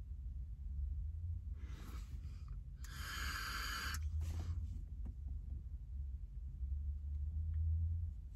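Vaping from a box-mod vape: a loud, airy hiss of a long draw through the atomizer for about a second, starting about three seconds in, with softer breathy hisses of breathing out vapor just before and after it, over a steady low rumble.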